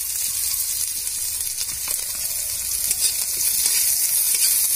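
Chopped onion sizzling in hot mustard oil in an aluminium kadai, with dried red chillies and nigella seeds, stirred with a metal spatula. A steady frying hiss that grows a little louder about three seconds in.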